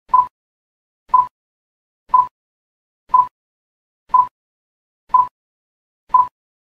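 Countdown timer sound effect: seven short, identical beeps, one a second, counting down the seconds left to answer.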